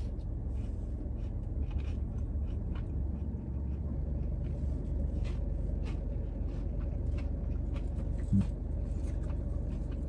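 Steady low rumble of a parked car's idling engine heard inside the cabin, with faint chewing and small clicks of food being handled, and a short hum from the eater about eight seconds in.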